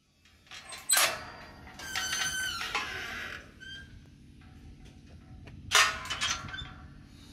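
Metal yard gate being worked: a clank about a second in, then a high squealing hinge for about a second and a half, and another clang near six seconds in that rings briefly.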